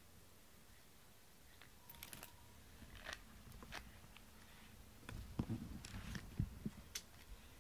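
Faint scattered clicks and rustles as a cat is groomed with a rubber cat brush, then, from about five seconds in, muffled thumps and rubbing as the cat presses its body against the camera.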